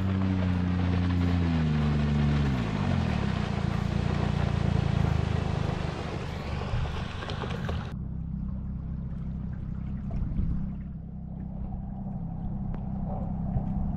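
An engine running, its pitch falling about two seconds in as it slows, over a rushing noise. A sudden cut about eight seconds in leaves a lower, steady engine drone.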